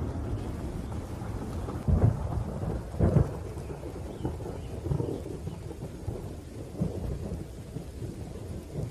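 Thunderstorm: continuous low rumbling thunder with rain. There are two loud claps about two and three seconds in, followed by weaker rolls.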